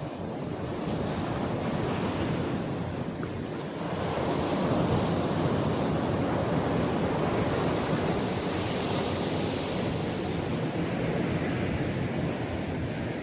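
Sea surf washing onto the beach, its noise swelling about four seconds in, with wind buffeting the microphone.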